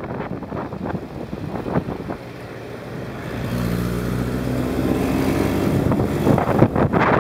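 Wind buffeting the microphone on a moving motorbike in street traffic. About halfway in a steady engine hum comes up close by while the bike squeezes between a lorry and a car; the hum rises slightly, then a louder wind rush takes over near the end.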